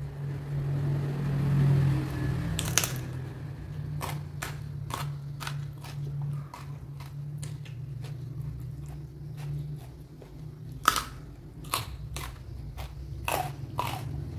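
A person biting and chewing crunchy raw food close to the microphone, with irregular sharp crunches, the loudest about three seconds in and again near the eleven-second mark. A low steady hum runs underneath.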